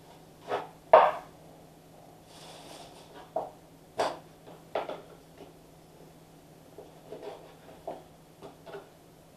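Kitchen knife slicing through pike fillet and striking a plastic cutting board: a string of short scrapes and knocks, the loudest about a second in.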